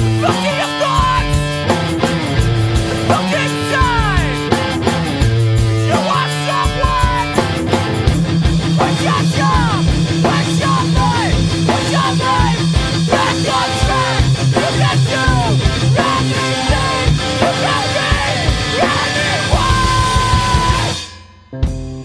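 Fast punk rock song from a two-piece band, distorted electric guitar over a pounding drum kit. The song stops abruptly about a second before the end, and a new guitar chord starts ringing.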